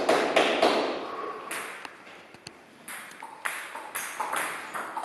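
Table tennis ball clicking off the bats and the table, in a string of irregularly spaced hits. A few single clicks come first, then a quieter spell, and a rally starts about three seconds in.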